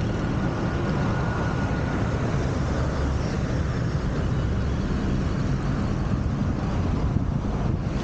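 Steady rush of wind and road noise from a moving car, picked up by a camera mounted on the outside of the car.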